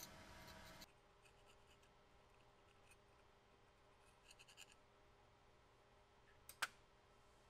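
Faint scraping and tapping of a brass rod spreading epoxy into the recesses of a steel screwdriver tang, then one sharp click near the end as the rod is set down. A low background hum cuts out just under a second in.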